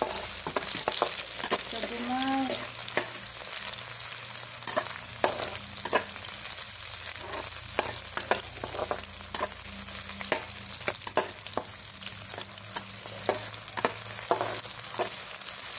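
Garlic, cinnamon stick, star anise and lemongrass sizzling in hot oil in a wok, with a steady hiss. A spatula stirring them scrapes and taps against the pan in many sharp clicks.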